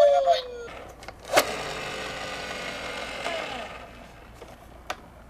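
Electronic toy siren falling in pitch and cutting off, then a sharp knock about a second and a half in as a toy car strikes the blocks, followed by a whirring rolling noise from the toy car that fades out over about two seconds, and a faint click near the end.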